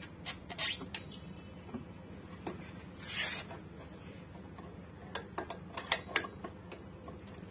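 Scattered light clicks, knocks and scrapes as a KTM Duke's front wheel is handled and worked into place between the fork legs. There are two brief scraping rasps, one just after the start and one about three seconds in, and a quick run of clicks around five to six seconds, over a steady low hum.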